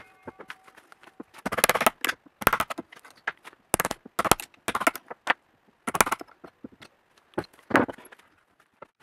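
Chisel breaking out the waste wood between circular-saw kerfs in a thick wooden blank: a dozen or so sharp cracks and knocks at irregular intervals, about one or two a second, as chunks split away.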